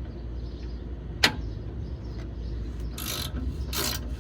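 Ratchet wrench working a seized exhaust oxygen sensor loose: a sharp metallic click about a second in, then two short bursts of ratcheting near the end.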